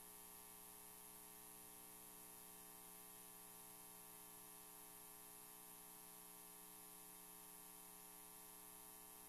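Near silence: a faint steady hum, with no applause heard.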